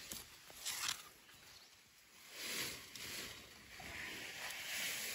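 Leaves and stems of a shrub rustling as a hand moves through them, in a few short bursts.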